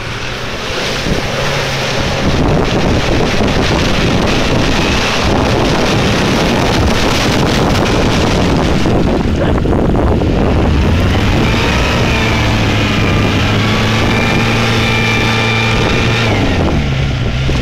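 Jeep Cherokee's engine revving hard as it ploughs through deep mud, with mud and water splashing against the body. Over the last several seconds the engine holds a high steady pitch as the Jeep bogs down nose-deep, then the revs drop near the end.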